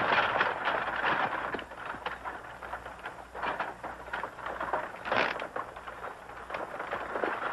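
Stagecoach pulled by a galloping horse team: hoofbeats and rattling wheels, loud at first and then quieter, with irregular short knocks and rattles.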